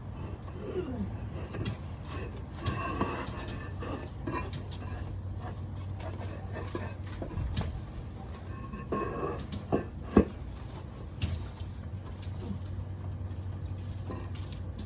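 Concrete pavers and hand tools knocking, clinking and scraping as a paver walkway is laid, with one sharp knock about ten seconds in. A steady low hum runs underneath.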